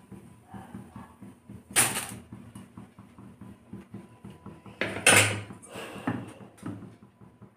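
Steel kitchen utensils clanking against a stainless-steel stovetop, two sharp clatters about two seconds in and again around five seconds in, with small clicks and taps between.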